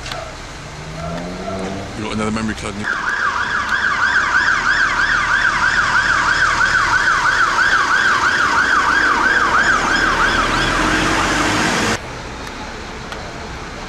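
Emergency vehicle siren on the fast yelp setting, sweeping rapidly up and down several times a second. It starts about three seconds in over engine noise and cuts off abruptly near the end.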